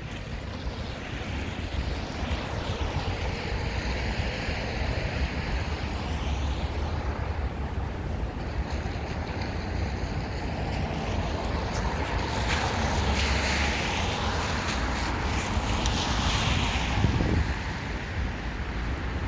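Wind gusting in a spring snowstorm, rushing and buffeting the microphone with a low rumble, swelling in stronger gusts past the middle.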